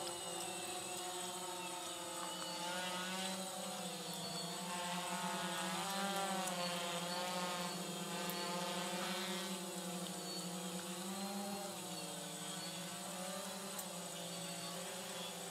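DJI Phantom FC40 quadcopter flying, its motors and propellers giving a steady hum whose pitch wavers up and down as the rotors change speed.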